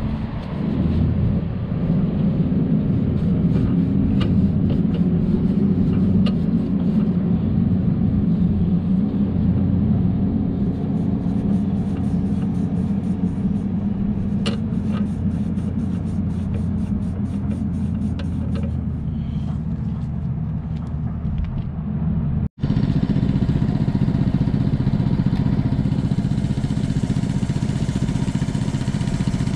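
An engine running steadily at a constant speed, with light metallic clicks and taps over it. The sound cuts out for an instant about two-thirds of the way through, then the engine carries on.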